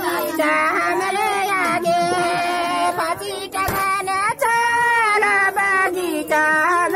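A man singing a Surjapuri folk song unaccompanied, holding long notes that bend and waver in pitch.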